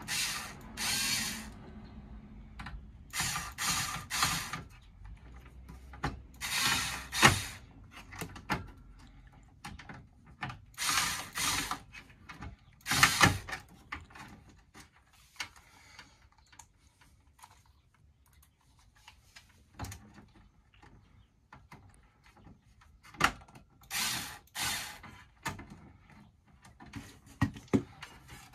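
Hand ratcheting screwdriver clicking in repeated bursts of about a second, with pauses and a few sharp knocks between, as screws are driven in to secure the bottom of an RV converter.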